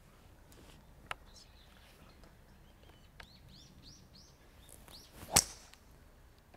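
A golf club strikes the ball with one sharp crack about five seconds in, the loudest sound. Before it a bird chirps several times, and there is a lighter click about a second in.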